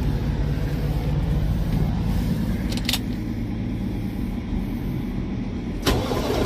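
Caterpillar diesel engine of a semi truck idling steadily, with two sharp clicks, one about halfway through and a louder one near the end.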